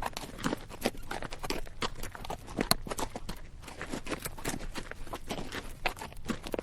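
A horse walking on rocky dirt, its hooves striking in an uneven clip-clop, with the bridle rattling and the saddle creaking.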